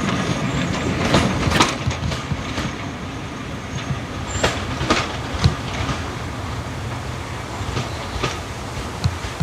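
Train's carriages rolling past, wheels clicking over the rail joints, loudest at first and then fading as the train moves away.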